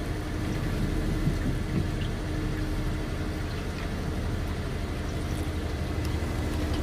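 Hired electric boat under way: a steady low rumble with a faint, even hum running through it.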